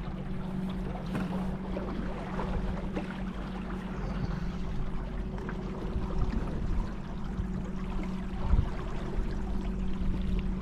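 Small boat's motor running at a steady pitch, with water washing and trickling along the hull as it moves along the river.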